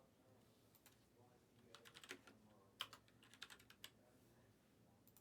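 Faint computer keyboard typing: scattered soft key clicks, bunched around two and three seconds in.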